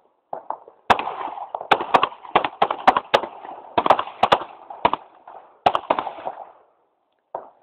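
Several handguns firing a ragged string of about fifteen sharp shots, some overlapping, each with a short echo. The shots begin about a second in and stop about six seconds in.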